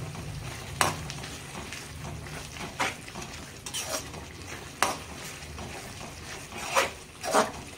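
Metal spatula stirring and scraping a thick masala gravy in a metal kadai over the flame. The masala sizzles under a steady low hum, and the spatula clinks against the pan about half a dozen times at uneven intervals.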